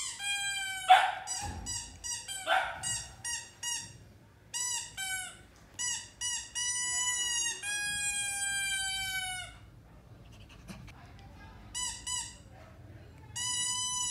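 Samoyed puppy whining and howling in high-pitched calls: a run of short yelps, then long drawn-out howls, a pause, and more howling near the end. Two louder, rougher cries come about a second and two and a half seconds in.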